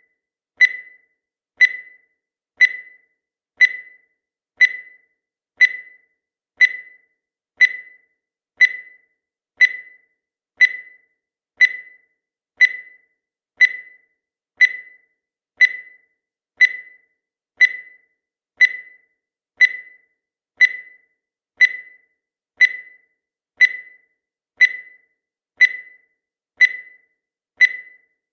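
Countdown timer's tick sound effect: a short, sharp ringing tick about once a second, in a steady, even rhythm.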